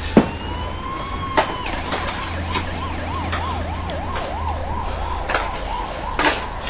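Emergency vehicle siren: a tone that rises for about a second, then a quick warble going up and down about three times a second, over a steady low hum.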